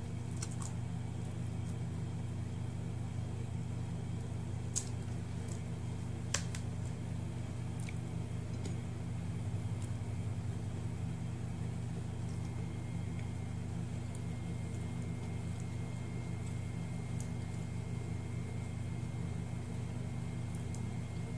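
Steady low machine hum of a room appliance, with two faint clicks about five and six seconds in.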